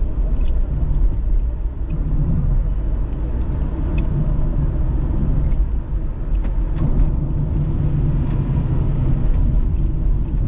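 Steady low road and engine rumble heard inside a moving car's cabin, with a few faint light ticks.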